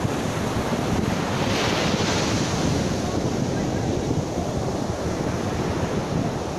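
Ocean surf breaking and washing up a beach, with wind buffeting the microphone. A wave's wash swells up about a second and a half in.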